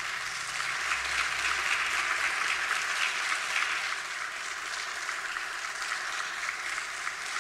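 Applause from a small group of people clapping, a little louder in the first few seconds and easing slightly after that.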